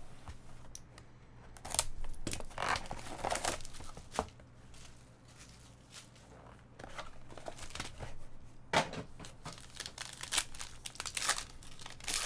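Trading-card packaging being opened: rustling and tearing of the box's wrapping with a box cutter for the first few seconds, then, near the end, a foil card pack being torn open and crinkled.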